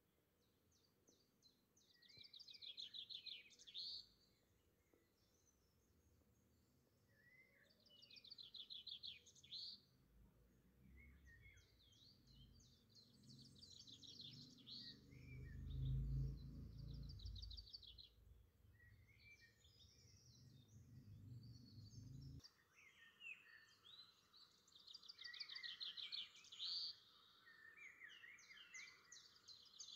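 Faint birdsong: small birds singing quick trilling phrases every few seconds. A low rumble builds through the middle, is loudest about halfway, and cuts off suddenly about three-quarters of the way through.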